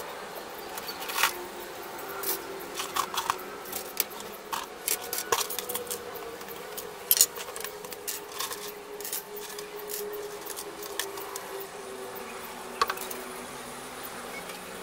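Dismantled TV antenna parts, aluminium rods, plastic clamps and small steel screws and bolts, being set down on a wooden table. They make a run of light metallic clicks and clatters, most in the first nine seconds, with one more sharp click near the end. A faint steady hum runs underneath.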